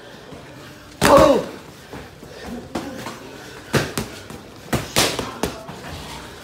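Boxing gloves smacking as punches land in sparring: a loud hit with a short shout about a second in, then a quick run of about five sharp smacks a little past the middle.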